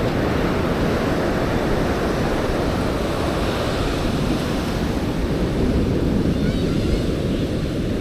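Ocean surf washing onto the beach, a steady rushing with wind buffeting the microphone.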